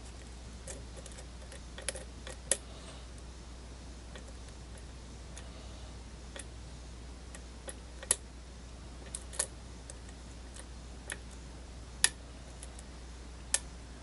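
Lock pick working the pin stack of a brass euro cylinder held under tension: faint, sharp clicks at irregular intervals, several seconds apart at times. The cylinder is sitting in a deep false set.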